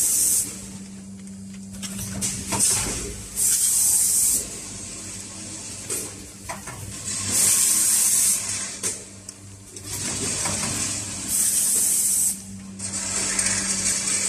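Premade-bag stand-up pouch packaging machine running its automatic cycle: a burst of compressed-air hiss, each about a second long, about every four seconds, with clicks and knocks of the mechanism between and a steady low hum.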